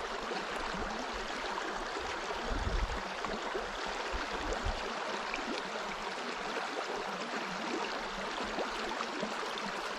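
Steady rushing of flowing river water, with a few brief low rumbles.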